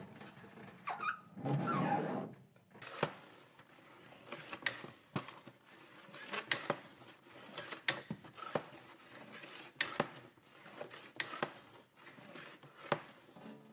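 A noisy scraping burst about two seconds in, followed by a run of irregular, sharp mechanical clicks and ticks, roughly one or two a second.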